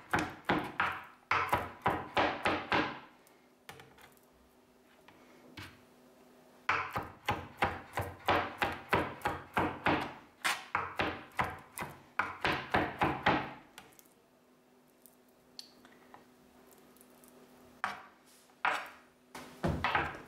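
A kitchen knife rapidly chopping sticky candied cherries on a plastic cutting board, about four to five knocks a second. The chopping comes in three runs with pauses of a few seconds between them.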